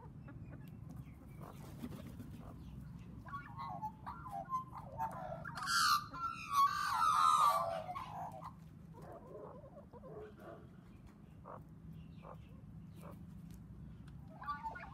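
Australian magpies and chickens calling together: warbling, gliding bird calls build up a few seconds in and peak in a loud, harsh stretch around the middle, then fall back to scattered calls.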